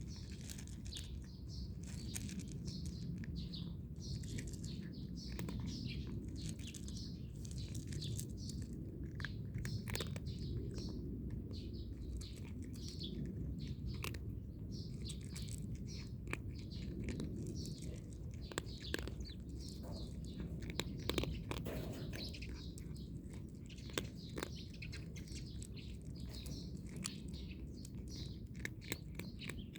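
Small birds chirping busily throughout over a steady low background rumble, with a few sharp clicks scattered through, which may be a cat crunching dry kibble.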